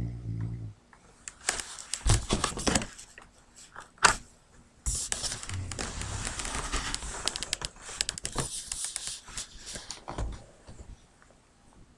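A dog's snore trails off within the first second. It is followed by irregular rustling and crackling broken by sharp clicks; the loudest clicks come about two and four seconds in. A long stretch of denser rustling follows, and it dies down near the end.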